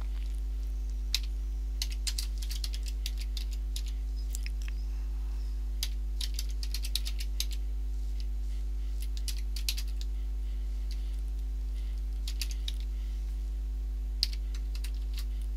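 Typing on a computer keyboard: short runs of key clicks with pauses between them, over a steady low electrical hum.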